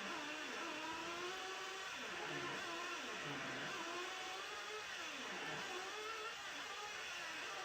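Losi LST RC monster truck's small nitro engine, revving up and easing off again and again as it drives laps.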